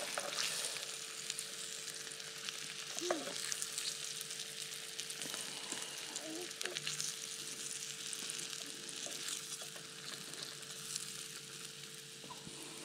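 Battered wiper (hybrid striped bass) pieces frying in a small pan of oil on a portable butane camp stove: a steady sizzle, with light clicks of metal tongs in the pan as the browned pieces are lifted out.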